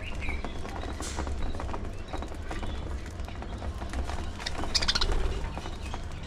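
Budgerigars pecking at their food with many small, irregular clicks, with brief chirps and a short burst of chattering about four and a half seconds in. A steady low rumble runs underneath.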